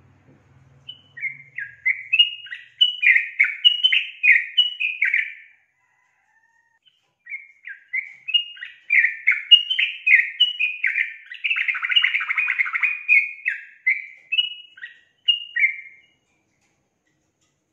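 Caged female yellow-vented bulbul (trucukan) singing: two bouts of rapid, chattering phrases of short notes, the second bout longer, with a pause of about two seconds between them.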